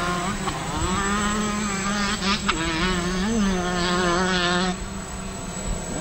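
Eyefly Q30 miniquad's four 2822 1100 kV brushless motors and 8-inch E-Props whining in flight as it comes in to land, the pitch wavering with the throttle and briefly rising about three seconds in. The whine stops at just under five seconds.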